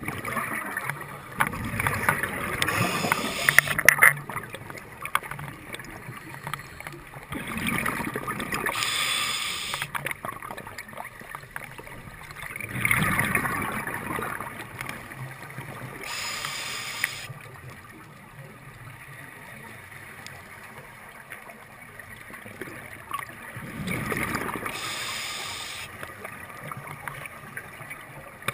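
Scuba regulator breathing heard underwater: slow cycles of hissing inhalation and gurgling exhaust bubbles, about one breath every seven seconds.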